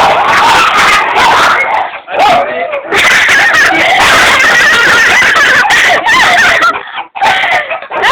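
Dogs barking and yelping loudly and almost without pause during a fight, with short breaks about two seconds in and again near the end.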